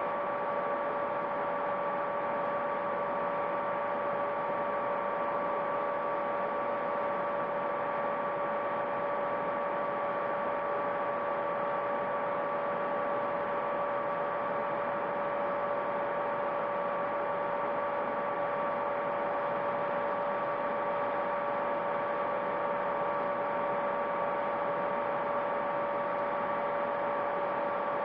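A steady hum: three constant tones over an even hiss, unchanging in pitch and level.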